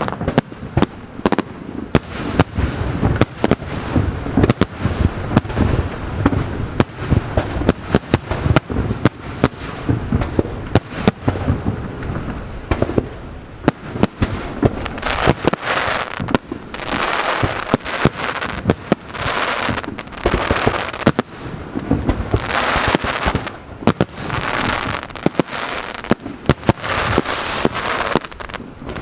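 Aerial fireworks display: a rapid barrage of bangs throughout, with long stretches of crackling hiss between the bangs from about halfway on.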